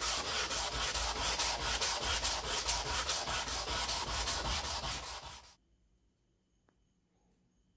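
Sandpaper rubbed by hand over the flat of a steel cleaver blade in quick back-and-forth strokes. It stops abruptly about five and a half seconds in.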